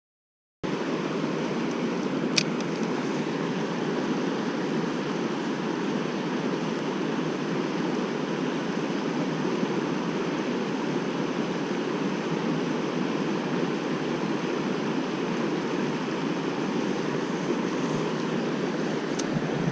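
Mountain stream rushing steadily, starting abruptly just under a second in, with a sharp click about two seconds in.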